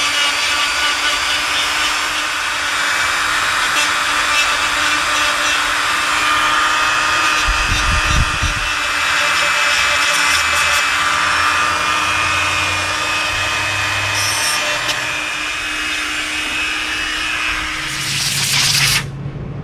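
Dremel rotary tool running at high speed, grinding down cured epoxy build-up with a steady high-pitched whine and rasp; it stops about a second before the end.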